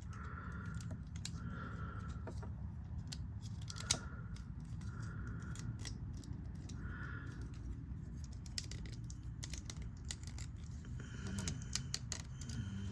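Plastic parts and joints of a Transformers action figure clicking and rattling as it is transformed by hand. The sound is a scatter of faint, irregular clicks, one louder about four seconds in, over a low steady hum.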